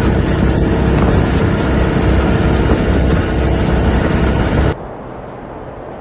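Tractor-mounted snowblower running and throwing snow out of its chute, a loud, steady rumble of engine and rushing snow. A little before the end it cuts off abruptly and gives way to a quieter, steady rush of blizzard wind.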